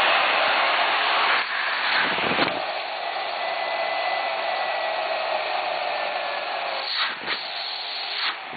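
Miele S744 1800-watt canister vacuum cleaner running: a steady rush of air with a faint motor whine. The airflow sound briefly changes twice, about a second and a half in and again near the end.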